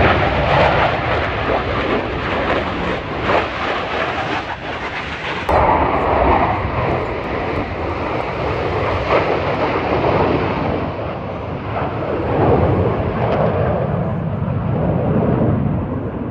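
Loud jet aircraft noise as a jet flies past, a steady roar that changes suddenly about five seconds in and loses its highest part toward the end.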